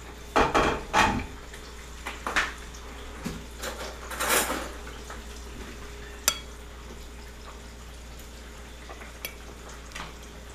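Metal spoon clinking and scraping against a ceramic soup plate while stirring pirão, the thick manioc-flour and broth mush. Several clinks and scrapes in the first two seconds, a longer swish around four seconds, and one sharp clink about six seconds in.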